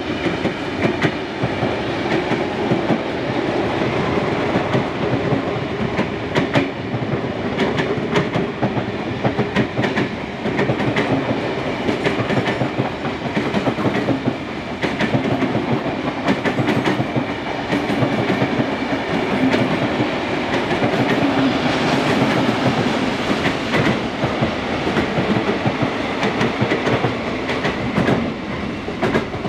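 Passenger carriages of a steam-hauled train rolling past close by, wheels clicking steadily over the rail joints. The sound eases off near the end as the last vehicles go by.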